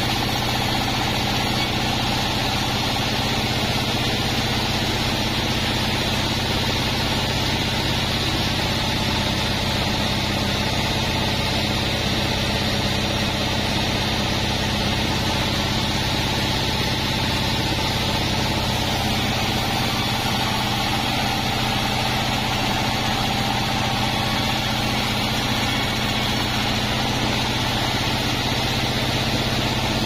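A band sawmill running steadily while its blade saws lengthwise through a wadang log, an even mechanical hum under a steady hiss of sawing.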